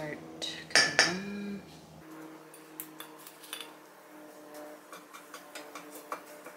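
Kitchen tongs clanking against a stainless steel mixing bowl and skillet while Brussels sprouts are lifted into the pan. There are two sharp clanks about a second in, the first with a short metallic ring, then light clicks and taps.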